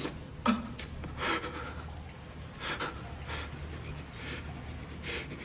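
A man's heavy, uneven breathing with sharp intakes and sniffs, over a steady low hum.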